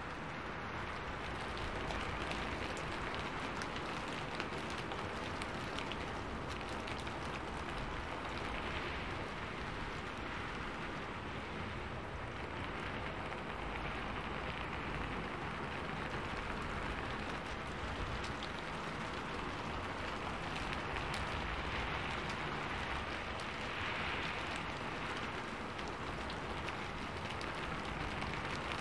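Steady rain falling, made up of many separate close drop hits over an even wash, swelling a little every few seconds.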